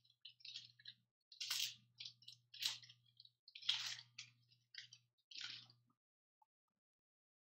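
Foil trading-card pack wrappers crinkling and tearing as packs are ripped open by hand, in a series of short bursts that stop about six seconds in.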